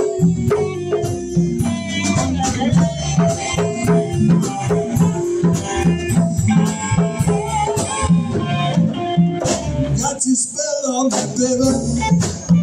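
A live band playing: electric guitar and bass with congas, a steady rhythmic groove. Near the end the bass drops away for about a second before coming back in.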